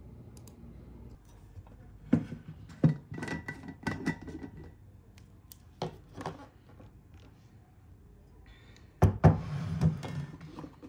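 Hard household objects being handled and set down: a scattered series of knocks and clatters, then a short burst of noise mixed with more knocks near the end.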